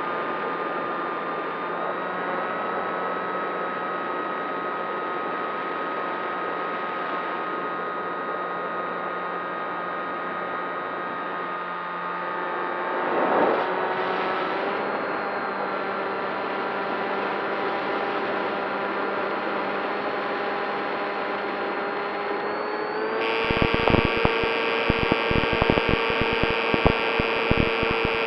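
Radio-controlled model airplane motor running at a steady throttle: a droning hum of several steady tones that shift slightly in pitch. There is a brief whoosh about 13 seconds in, and from about 23 seconds on a louder hiss joins, with irregular crackling thumps.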